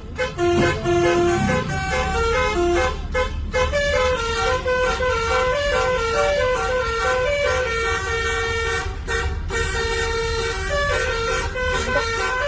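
Basuri telolet horn on a tour bus playing a remixed tune, sustained notes stepping from one pitch to the next, over a steady low engine rumble.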